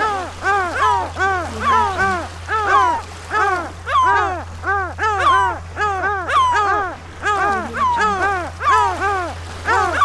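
Gull calling in a fast, unbroken series of short, arched, squawking notes, about three a second, over a steady low hum.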